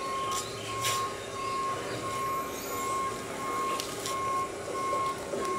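An electronic warning beeper sounding a steady, evenly spaced beep, about seven beeps over five and a half seconds, over a low hum and the faint running noise of an approaching EMU local train, with a few light clicks.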